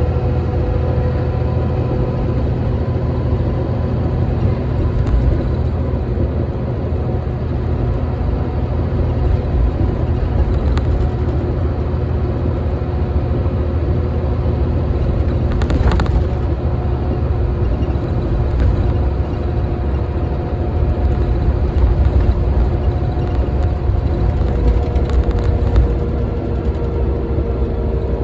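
Tokyu city bus heard on board while in service: steady engine and road rumble with a faint whine from the drivetrain, and a sharp click about halfway.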